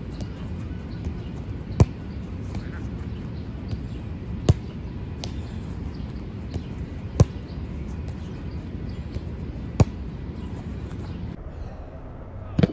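A soccer ball being kicked hard, four sharp strikes roughly every two and a half seconds, over steady low background noise.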